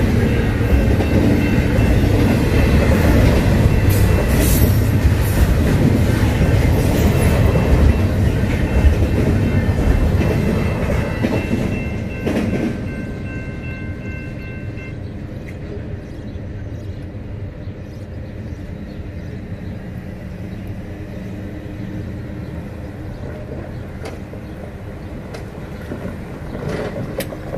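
Double-stack intermodal freight cars rumbling and clattering over the grade crossing, with a steady high ringing tone over them; the train noise drops away about twelve seconds in and the tone stops a few seconds later. Then quieter road traffic, with a vehicle driving over the crossing near the end.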